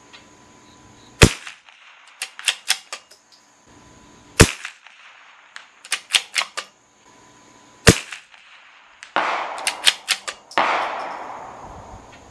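Three shots from a CZ 457 bolt-action .22 LR rifle firing subsonic Norma Tac-22, about three seconds apart. After each of the first two comes a quick run of clicks from the bolt being worked to chamber the next round. Late on come two sudden rushing sounds, quieter than the shots, that die away slowly.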